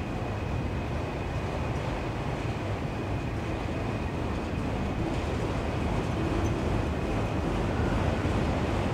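Freight cars of a Norfolk Southern train rolling past on the climb, a steady rumble of wheels on rail that slowly grows louder, with a faint thin squeal held above it.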